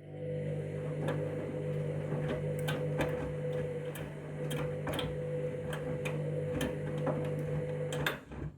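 Candy washing machine's drum motor running through a main-wash tumble: a steady motor hum that starts at the beginning and stops just before the end, with irregular sharp clicks and ticks throughout.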